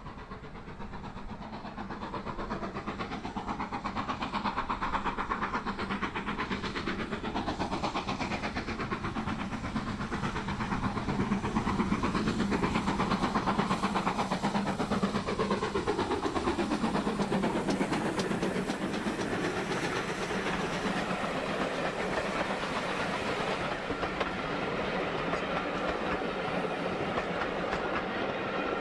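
GWR Manor-class 4-6-0 steam locomotive 7828 hauling a passenger train, its exhaust beats growing louder as it approaches and passes about halfway through. The coaches' wheels then clatter over the rail joints as they roll by.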